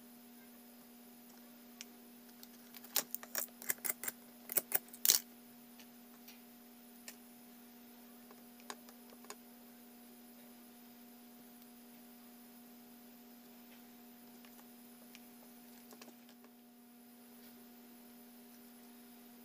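A quick cluster of small, sharp clicks and taps a few seconds in, with a few single ticks later, from small tools handled on a phone circuit board while a charging port is soldered in place. A steady hum runs underneath.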